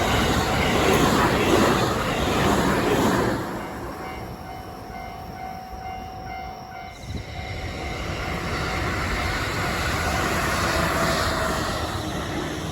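A train passing a railway level crossing at speed, loud for the first three and a half seconds and then dropping away. The crossing's warning alarm rings steadily. The train noise swells again in the second half and eases near the end.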